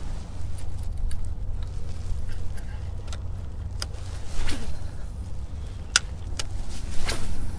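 Wind rumbling steadily on the microphone, with a few sharp clicks and two short rustles scattered through.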